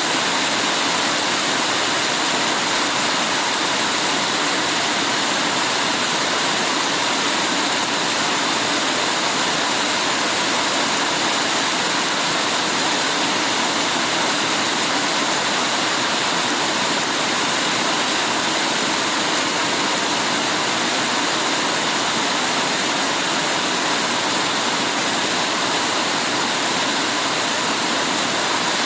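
Heavy rain falling steadily: a dense, even hiss with no separate drops or thunder standing out.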